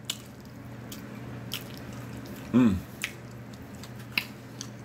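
Close-up eating sounds: a few sharp, wet mouth clicks and smacks while chewing, with a short hummed vocal sound about two and a half seconds in, over a steady low hum.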